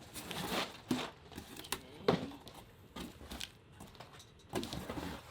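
Rustling and crinkling of shipping packaging and bubble wrap as a boxed set is lifted out of a cardboard box, with a few light knocks of cardboard.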